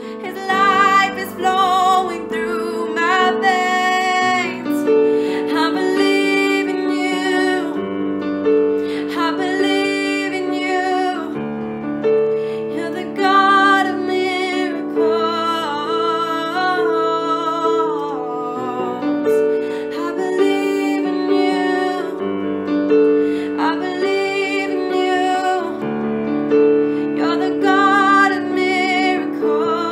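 A woman singing a worship song with vibrato over held piano chords, in sung phrases a few seconds long.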